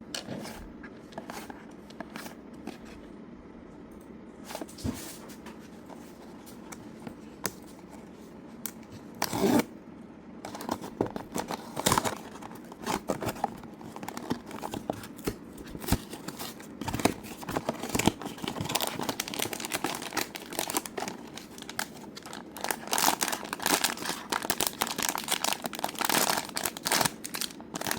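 Toy packaging being opened by hand: wrapping crinkling and tearing, with scattered clicks and taps, sparse at first and much busier from about ten seconds in.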